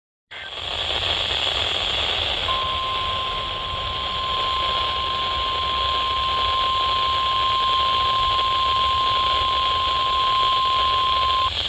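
NOAA Weather Radio 1050 Hz alert tone: one steady tone held about nine seconds, starting a couple of seconds in and cutting off just before the end, heard through a steady hiss of radio static. The tone marks a weather radio test broadcast.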